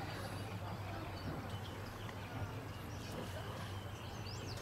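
Outdoor ambience: a steady low hum under a wash of background noise, with small birds chirping and a few quick chirps near the end.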